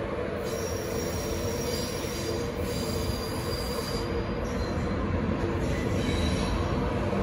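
Coaches of an InterCity 225 train, Mark 4 carriages behind a Class 91 electric locomotive, rolling slowly past with a steady rumble. Thin high-pitched wheel squeals come and go over the top of it.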